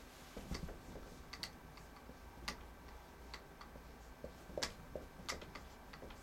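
Felt-tip marker writing on a whiteboard: a scatter of faint, irregular taps and short scratches as the tip strikes and lifts off the board, a few a little louder in the second half.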